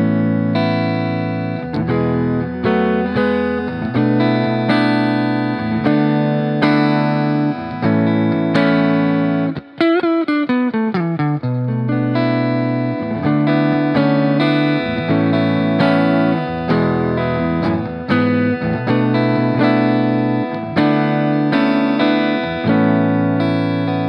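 EVH Wolfgang Standard electric guitar played through an amp with effects over a backing track: sustained notes and chords that change every second or so. About ten seconds in comes a whammy-bar dive, the pitch falling steadily for about a second and a half.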